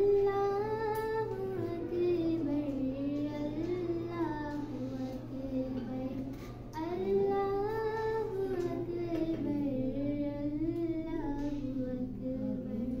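A girl's voice singing or chanting solo in two long melodic phrases, with a short break about halfway, over a steady low hum.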